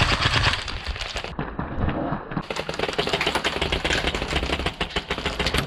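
Airsoft electric guns firing rapid full-auto bursts: a dense, fast clatter of shots.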